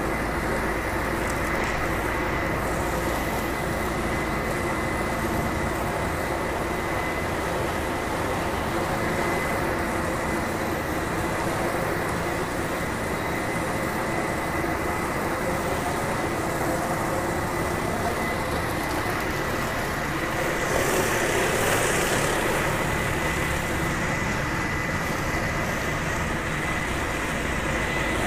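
Pressure-washing machinery running steadily with a constant high whine over a low hum. It grows a little louder and hissier around twenty seconds in.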